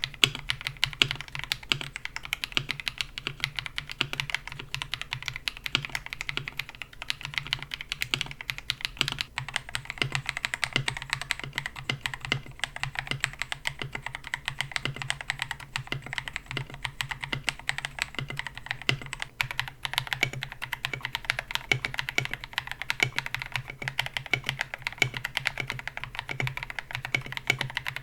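Continuous fast typing on a KBD67 Lite mechanical keyboard with KTT Mint linear switches and a polycarbonate plate: dense, rapid keystrokes with occasional louder strokes.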